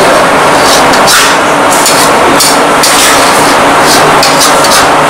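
Metal spatula scraping and stirring thick prawn-and-taro paste in a large metal kadai, in irregular strokes, over a loud steady kitchen roar.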